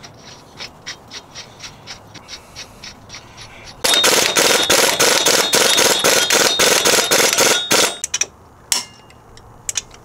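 A pneumatic impact wrench runs a front axle nut down onto a Chevy Cobalt's wheel hub, rattling loudly for about four seconds with a thin air whine over the hammering. Before it comes a run of light, regular clicks as the nut is turned on, and a few separate sharp clicks follow near the end.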